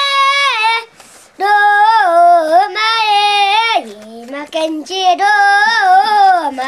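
A five-year-old boy singing solo and unaccompanied, in loud held phrases whose pitch bends and slides, with short breaks between phrases about a second in and again around four seconds in.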